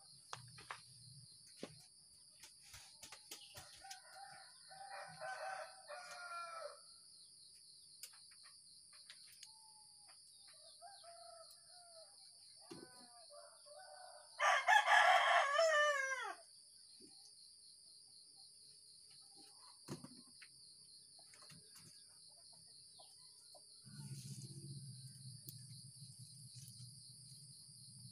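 A rooster crows once, loud and falling away at the end, about halfway through, with fainter bird calls a few seconds in. A steady high-pitched buzz runs underneath, and a low rumble comes in near the end.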